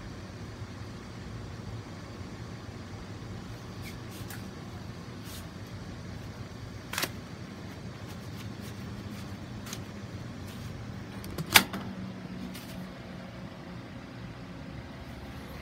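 Steady low hum with a few scattered light clicks, a sharper click about seven seconds in and one louder knock a little later.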